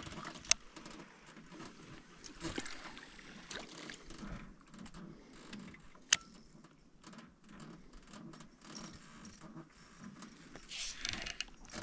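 Fishing tackle being handled, with small irregular rattles and clicks, as from a reel being worked during a retrieve. Two sharp clicks stand out, one about half a second in and one about six seconds in.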